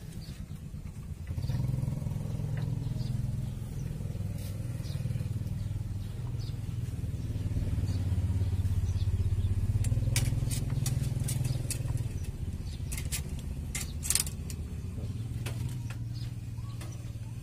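An engine running steadily, growing louder toward the middle and then easing off, like a motor vehicle passing close by. Several sharp clicks and ticks come in the second half.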